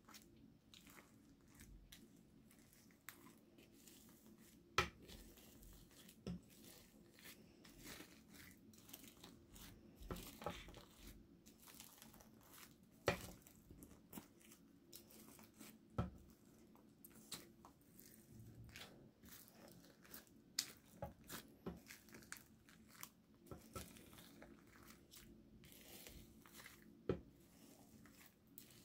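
Slime being squished and stretched by hand, giving faint irregular sticky clicks and pops, with a few louder snaps among them.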